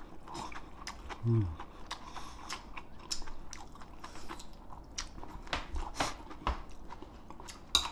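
Close-up chewing and biting of a person eating a mouthful of green onion kimchi, with many small wet crackles. Metal chopsticks click lightly against the dishes, the sharpest click near the end, and there is a short falling hum about a second in.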